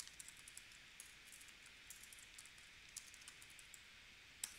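Faint typing on a computer keyboard: a quick run of light key clicks, with one slightly louder click near the end.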